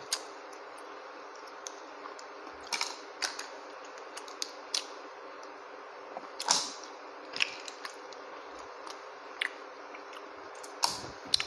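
Cooked mussel shells clicking and cracking as they are pried open and picked apart by hand: about eight short, sharp clicks at uneven intervals over a steady low hum.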